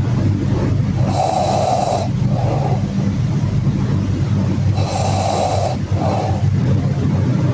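A person snoring: two long snores about four seconds apart, each followed by a shorter, weaker breath, over a steady low hum.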